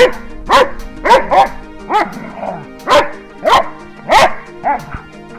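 Dog barking repeatedly while play-fighting, about nine short barks spread over five seconds, over steady background music.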